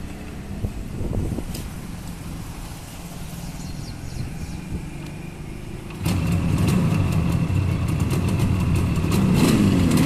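Yamaha RD350 (Rajdoot 350) two-stroke parallel-twin motorcycle engine being kick-started: it catches suddenly about six seconds in and runs loud and fast, with the revs rising and falling near the end.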